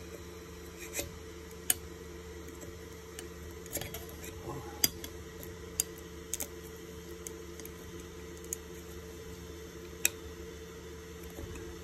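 Steel scraper spatula working under a freshly printed PLA whistle on a 3D printer's bed to pry it loose: a few sharp, scattered clicks and taps of metal on the bed and the print, over a steady low hum.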